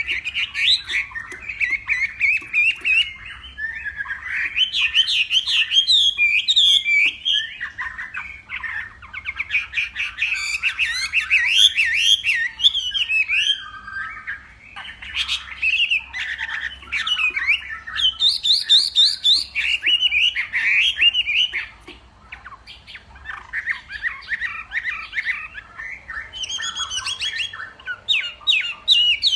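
Chinese hwamei singing a long, varied song of rapid whistled phrases. The singing pauses briefly about halfway through and again around two-thirds of the way in.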